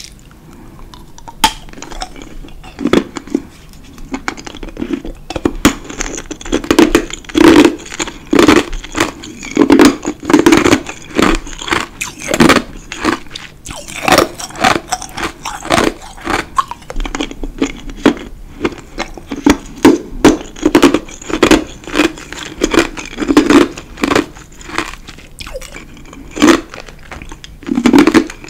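Close-miked crunching and chewing of ice in the mouth: many sharp crunches one after another at an irregular pace, with duller chewing between bites.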